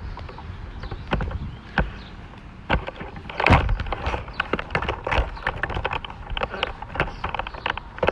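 Irregular knocks, clicks and rustles of a phone and tripod being handled while walking, with a low wind rumble on the microphone.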